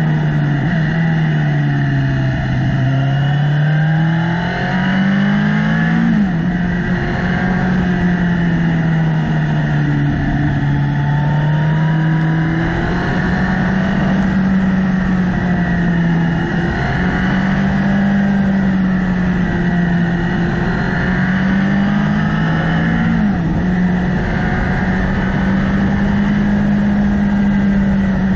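Motorcycle engine heard from on board, its pitch rising and falling with the throttle through the bends. It climbs and then drops sharply at an upshift about six seconds in and again late on, over a steady rush of wind noise.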